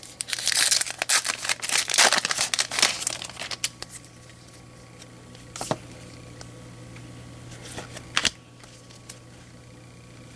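Foil wrapper of a baseball card pack crinkling and tearing as it is handled and ripped open, busiest in the first few seconds. Two sharp clicks follow later.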